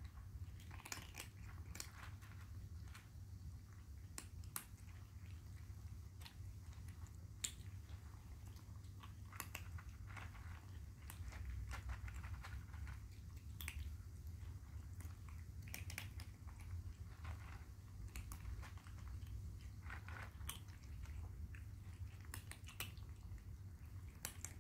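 Several kittens chewing dry kibble, a steady run of small, irregular crunches as they eat from one bowl. A low steady hum lies underneath.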